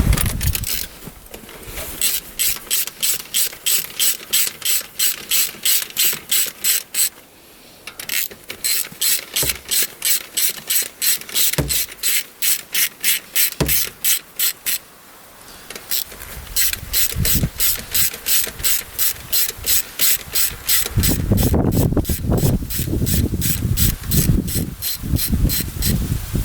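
Hand ratchet wrench clicking in long runs of about four clicks a second, with short pauses between runs, as bolts are backed out on the Polaris Ranger 570 engine to open it up for a valve-timing check. A lower rumbling noise joins the clicking in the last few seconds.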